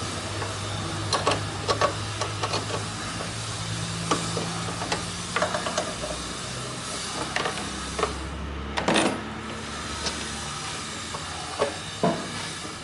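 Peugeot 3008 engine running with a steady hum, with irregular sharp clicks and knocks over it; the loudest cluster comes about two-thirds of the way through.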